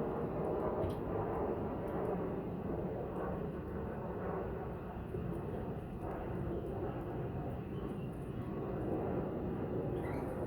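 Steady low rumbling background noise, like an engine heard from afar, with a few faint ticks.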